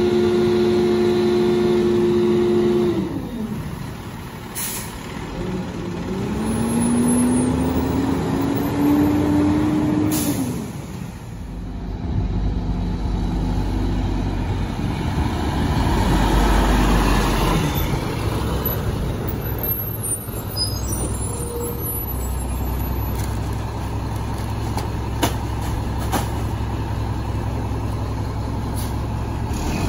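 Rear-load garbage truck working its packer: the diesel engine runs high under hydraulic load with a steady whine and drops back about three seconds in, then revs up again with a rising pitch. After that a rear loader runs with a steady low rumble, with a few short sharp sounds.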